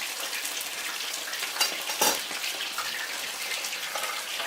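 Food frying in hot vegetable oil, a steady sizzle, with two sharp knocks of a utensil against the pan around one and a half to two seconds in as the pieces are moved around.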